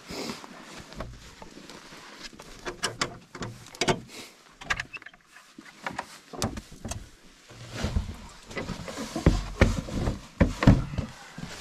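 Sharp metallic clicks and rattles of a key and lock being worked on a wooden cabin door, with heavier knocks and thumps in the last few seconds as the door is forced open.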